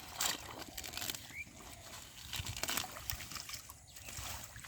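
Muddy shallow water sloshing and splashing in short, irregular splashes as hands grope through it to catch fish.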